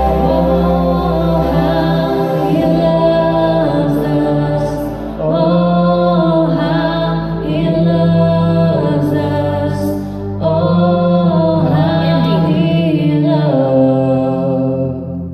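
A man and a woman singing a slow worship song together over a recorded backing track of sustained chords, in phrases with short breaths between them.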